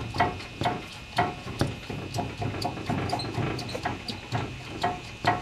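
Worn upper control arm bushings on a Toyota Tacoma's front suspension squeaking and clicking as the arm is moved, about two short squeaks a second. The squeaks are the sign of bushings worn out enough to need replacing.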